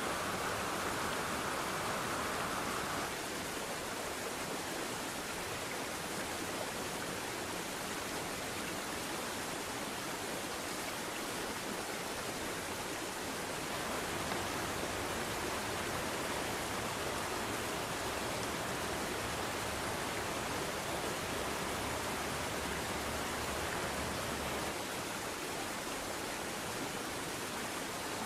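Steady rush of creek water, an even hiss with no separate events, its tone shifting slightly a few times.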